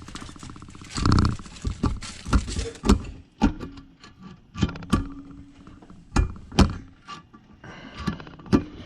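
Valve keeper installer tool being pushed down on the valve springs of a cylinder head, with steel parts knocking together in an irregular string of sharp clicks and clacks as the keepers pop into place.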